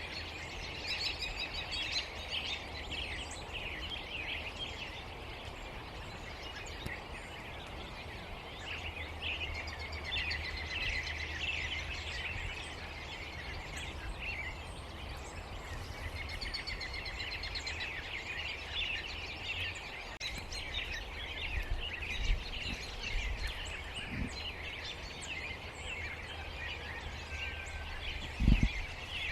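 A large mixed flock of blackbirds (red-winged blackbirds, common grackles and cowbirds) calling all at once in a dense, continuous chatter of overlapping short calls. A low wind rumble on the microphone runs underneath, and a single low thump comes near the end.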